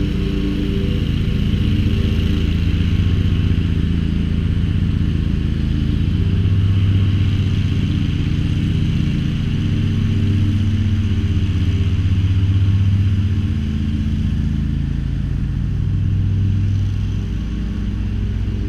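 Dixie Chopper zero-turn mower's 27 horsepower Generac engine running steadily while mowing, with a hiss from the spinning deck, its level swelling and easing a little.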